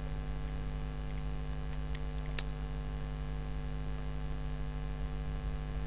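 Steady electrical hum on the recording, with one short click a little before halfway through.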